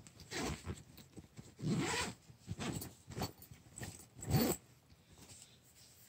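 Zipper on a fabric bag pulled open and shut in several short strokes, the last, about four seconds in, the loudest, with faint rustling of the bag's contents between them.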